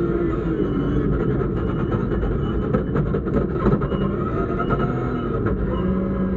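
BMW rally car's engine heard from inside the cabin, pulling hard on a snowy stage, its pitch rising and falling with throttle and gear changes. Scattered sharp clicks and knocks are heard over it.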